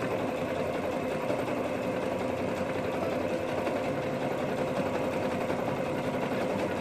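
Electric domestic sewing machine running steadily without a break, zigzag-stitching pieces of leather together edge to edge.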